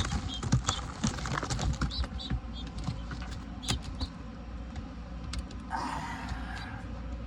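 Scattered light clicks and taps of someone handling things in a pigeon loft, with a brief rustle about six seconds in.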